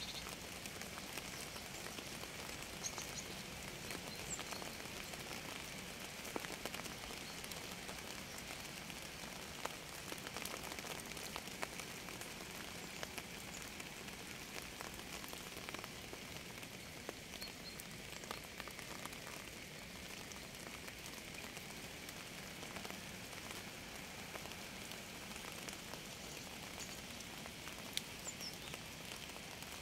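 Steady rain falling, with many individual drop hits ticking through an even hiss, and a few brief high chirps now and then.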